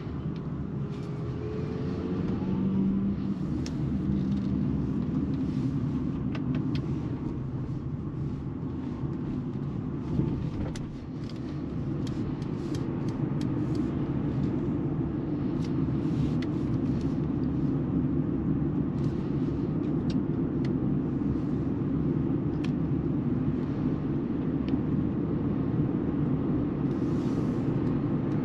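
Tyre and road noise inside the cabin of a Mercedes EQB 350 4MATIC electric SUV as it speeds up and cruises: a steady low rumble with no engine note, and a faint rising whine in the first few seconds. A single thump about ten seconds in, with small ticks from the road surface scattered through.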